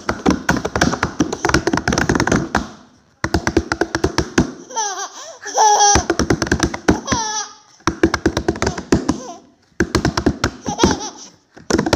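A baby slapping her palms on a wooden tabletop in quick repeated taps, several a second, with short pauses. Baby laughter and squeals rise over the slapping about halfway through.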